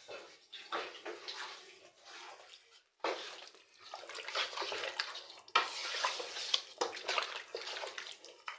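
Hands mixing chicken pieces in a wet garlic and spice marinade in a bowl: uneven squelching and sloshing with small clicks, stopping briefly about three seconds in.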